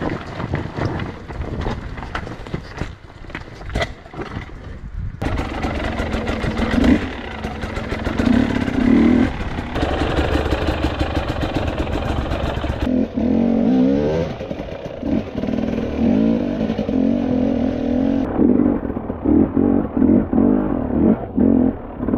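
Enduro dirt bike engine worked at low speed over rough ground: it rises and falls repeatedly as the throttle is opened in short bursts. The bike and terrain add clatter and knocks.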